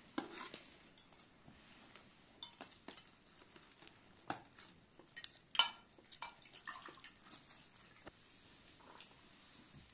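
Metal spoons scraping and clinking against a metal roasting pan while a whole roast chicken is pulled apart: scattered light clicks and scrapes, the loudest a little past halfway.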